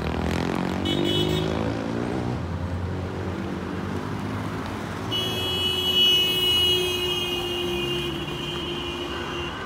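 Cars driving past, one engine rising in pitch as it accelerates early on, with a brief horn toot about a second in. A long, held car horn blast sounds from about halfway through until near the end, louder than the traffic.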